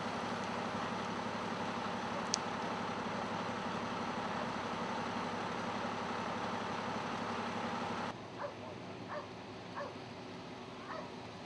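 Fire engine idling with a steady mechanical hum and a single sharp click about two seconds in. About eight seconds in, the sound drops quieter and a few faint short sounds come through.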